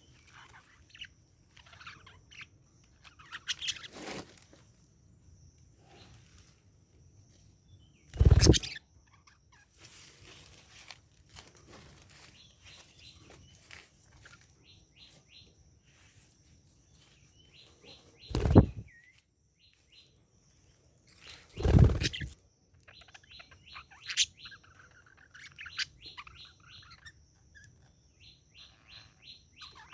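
Budgerigars chirping and chattering, with quick runs of short, high, repeated chirps. Three loud dull thuds break in, about 8, 18 and 22 seconds in.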